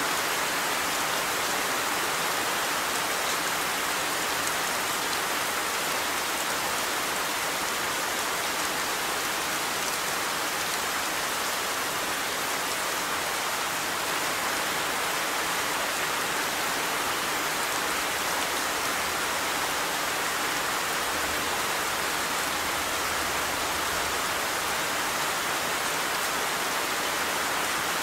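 Steady rainfall hissing on a surface, an even shower with no let-up.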